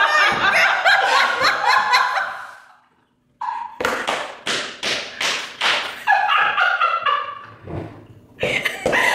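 Women laughing hard, with a fast run of sharp hand smacks, about four a second, a few seconds in, then more laughter and a few low thumps near the end.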